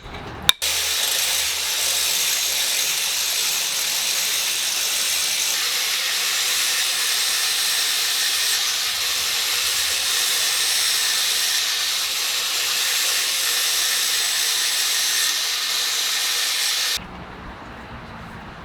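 One more hammer blow driving the axe head onto its handle about half a second in, then a loud, steady hiss that lasts about sixteen seconds and cuts off suddenly.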